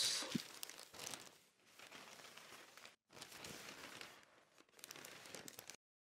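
Newspaper pages rustling and crinkling as they are opened, turned and folded, in several bursts, loudest at the start. It cuts off suddenly near the end.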